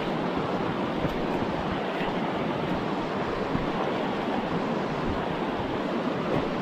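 Steady rushing of the Tongariro River running fast over a shallow bed of rocks and boulders in white-water rapids.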